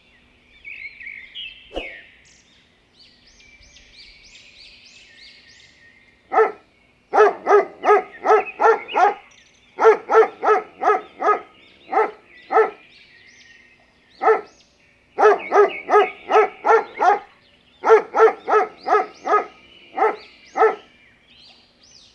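A dog barking over and over in quick runs of several sharp barks, starting about six seconds in, with faint bird chirping underneath.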